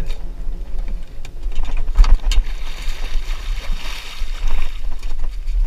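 A large alligator gar, shot with a bowfishing arrow, thrashing and splashing at the surface beside a small boat; the splash swells about three seconds in. There are a couple of sharp knocks about two seconds in, over a steady low rumble of wind on the microphone.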